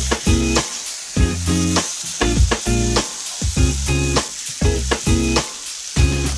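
Food sizzling as it fries in a pan, under background music with a steady beat and a strong bass line.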